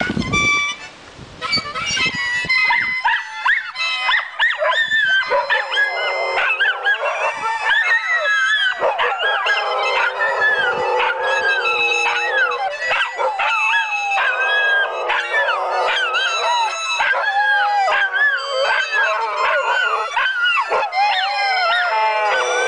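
A husky-type dog howling in long wavering wails along with held notes played on a small mouth-blown instrument, while a smaller dog joins in with higher yips and howls.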